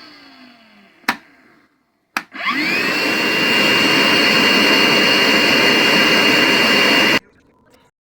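DEWALT DCV580H cordless wet-dry vacuum's motor winding down with a falling whine. Then come two clicks, and the motor spins back up with a rising whine and runs loud and steady with a high whine over the rush of air. It cuts off suddenly about seven seconds in.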